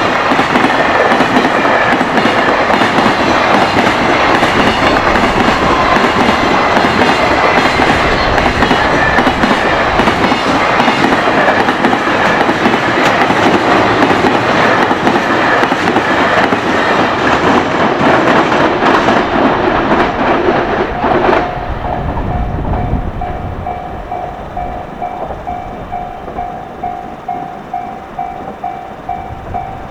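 A high-speed container freight train passing close by, its wheels clattering rapidly over the rail joints under the traction motor noise. About two-thirds of the way through the train clears and the noise drops off suddenly, leaving the level crossing's warning bell ringing in a steady, even beat.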